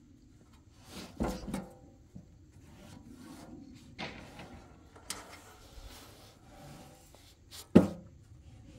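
Scattered knocks and scraping, like objects being handled and set down, with a sharp, louder knock near the end.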